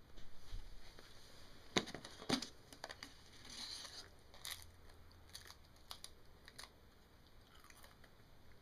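Quiet handling noises: a few sharp clicks and knocks, two of them louder a couple of seconds in, with crinkling rustles between.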